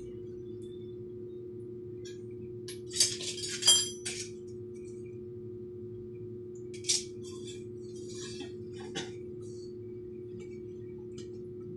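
Metal parts clinking and rattling as they are handled: two sharp clinks with a brief metallic ringing about three to four seconds in, another clink near seven seconds, then lighter rattles. A steady low hum runs underneath.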